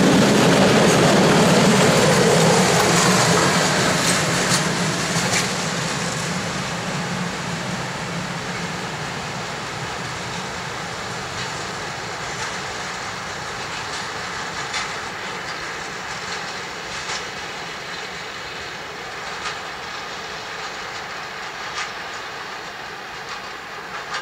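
Loaded open coal wagons of a long freight train rolling past and away, wheels clicking over the rail joints. The rumble fades steadily as the last wagons recede.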